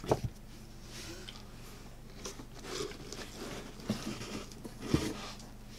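A paperback manga volume set down on a stack with a sharp tap, then crackly rustling and a couple of soft knocks as hands rummage in a cardboard box.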